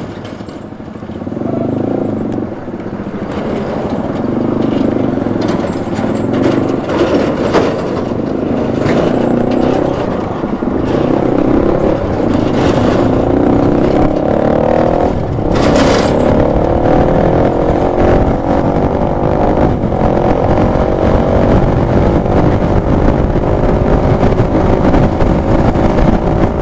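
A vehicle's engine and road noise building as it pulls away and gathers speed, the engine note rising slowly in the second half. A few brief knocks come through the rumble.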